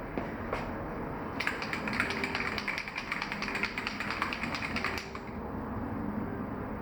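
Rapid mechanical clicking, many ticks a second, starting about one and a half seconds in and stopping abruptly about five seconds in, over a steady low rumble.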